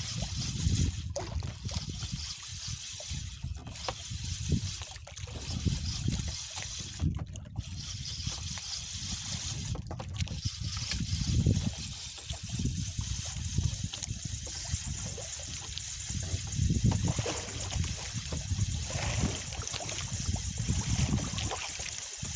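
Water lapping and trickling against the hull of a small fishing boat, coming in irregular low surges over a steady hiss.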